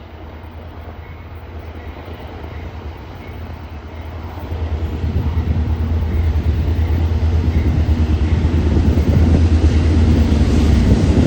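Diesel freight locomotives approaching with a deep, steady engine rumble that grows steadily louder.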